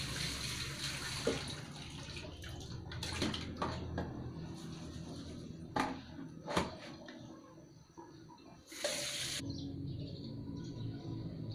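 Water running from a tap and splashing into a plastic basin, with several sharp knocks from handling, and a short loud rush of water about nine seconds in.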